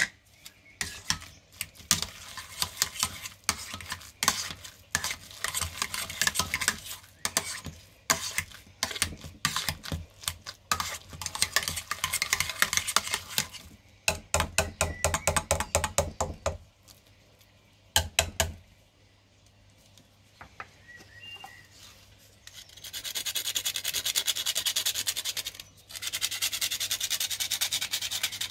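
A metal potato masher mashing potatoes and butter in a stainless steel pot: rapid strokes with sharp clicks and knocks against the pot, stopping about 18 seconds in. After a short lull, a nutmeg is rubbed on a small hand grater over the pot, a steady scraping in two long runs near the end.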